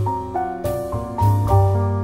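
Background piano music: a melody of separate notes, each fading after it is struck, over low bass notes.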